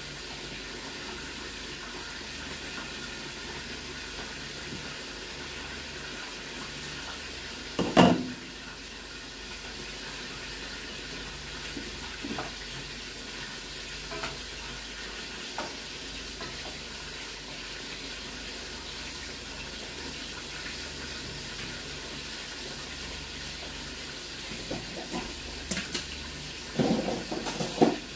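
Chicken afritada sizzling and simmering steadily in a pan on a gas burner. A loud clank comes about eight seconds in, a few light knocks of a spatula while it is stirred, and a run of clattering near the end.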